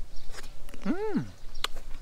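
A person biting into and chewing a cherry tomato, with a couple of sharp wet clicks, and a short voiced sound about a second in that rises and falls in pitch.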